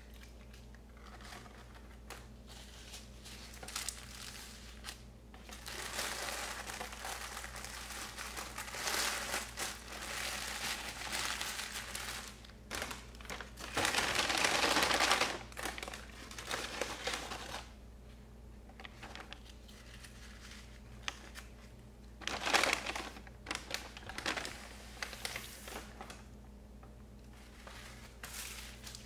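Paper burger wrappers and a paper takeout bag being crumpled and rustled by hand, in irregular stretches, loudest about halfway through with another burst near the end.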